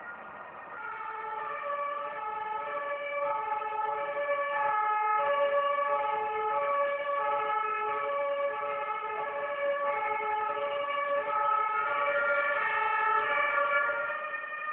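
Two-tone emergency vehicle siren (German Martinshorn) passing in the street, its two notes alternating evenly. It comes in about a second in, stays loud, and falls away just at the end.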